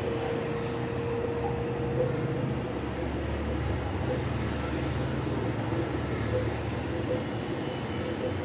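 Samsung washer-dryer on its spin cycle at about 1400 RPM, running as a steady low hum with a faint constant whine. It has no knocking: it is running quietly after its repair.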